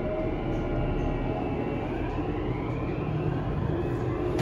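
Tokyu 5000 series electric commuter train running between stations, heard from inside the passenger car: a steady rumble of wheels on rail with an electric whine from the traction motors that rises in pitch about halfway through.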